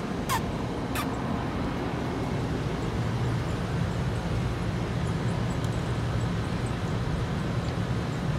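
Steady low rumble of road traffic, a little louder from about three seconds in. Two short high-pitched squeaks that fall in pitch come about a second apart near the start.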